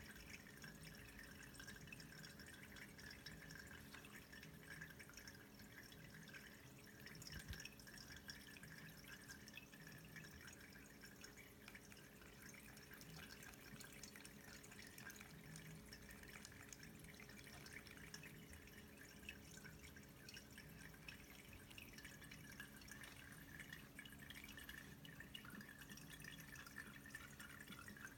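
Pet drinking fountain running quietly: a faint steady trickle and drip of falling water over a low steady hum. One brief tap about seven seconds in.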